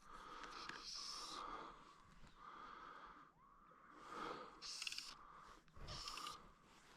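A person breathing hard in short, hissy breaths several times, faint and close to the microphone.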